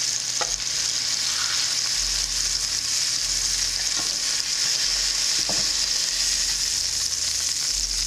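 Pork chops sizzling in a ceramic nonstick skillet, a steady frying hiss. A few light clicks come through as metal tongs lift the chops out of the pan.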